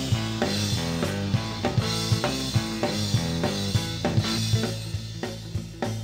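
Background music with a steady drum-kit beat, thinning out and getting a little quieter near the end.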